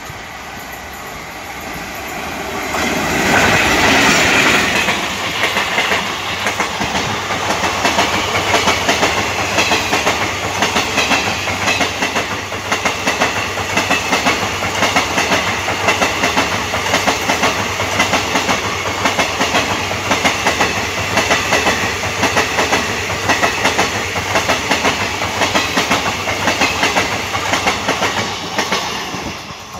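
Electric-hauled passenger train of ICF coaches passing close by at speed. The sound builds as the locomotive nears and is loudest as it passes, about four seconds in. After that comes a long, steady, rapid clickety-clack of the coach wheels over the rail joints.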